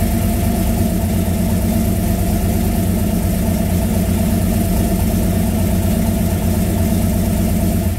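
Cobra replica's engine idling steadily through Spintech 7000-series low-profile mufflers.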